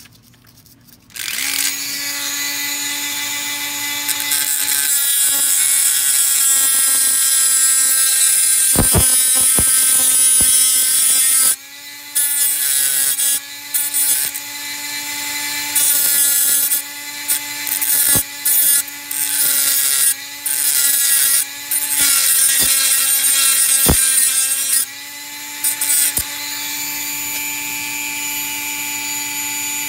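Dremel rotary tool switching on about a second in and running at a steady high whine as it grinds metal off the pan and dog of a Duke #3 coil spring foothold trap. From about halfway it keeps dropping out and coming back in short breaks.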